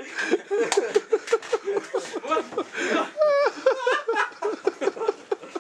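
People laughing hard, in quick rhythmic ha-ha-ha pulses, with a higher wavering laugh about three seconds in.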